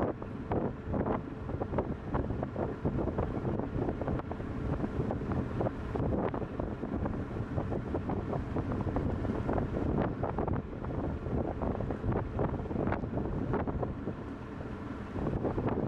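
Wind buffeting the microphone in gusts, over a faint steady hum from the coaster ship's engine as it steams along.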